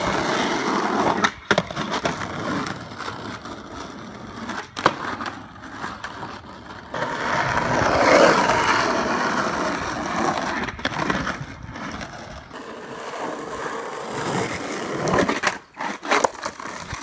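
Skateboard wheels rolling on asphalt, a steady gritty rumble that is loudest about halfway through, with several sharp knocks from the board.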